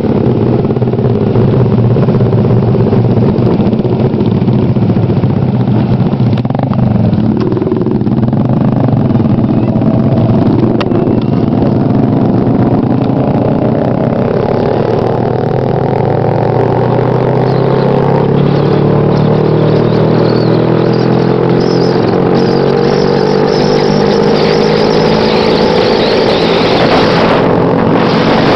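Vehicle engine running while under way, recorded from on board. About halfway through, the engine's pitch rises steadily for several seconds, then holds.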